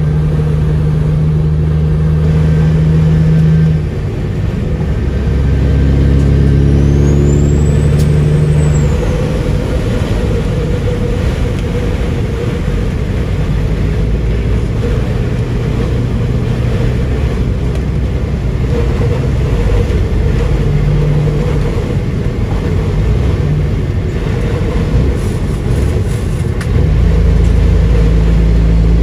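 A Kenworth W900L's Caterpillar diesel running on the highway, heard from inside the cab over a steady rush of wind and road noise. The engine note drops about four seconds in and comes back stronger near the end.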